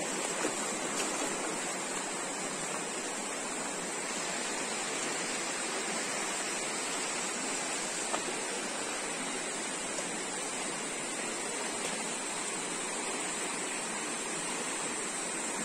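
Shallow mountain river rushing steadily over rocks and stones, a continuous even roar of flowing water.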